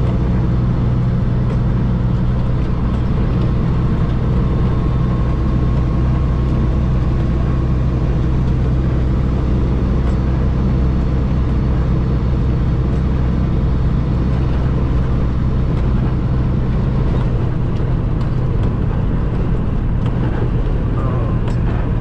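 A truck's engine droning steadily with road noise, heard from inside the cab while driving at highway speed.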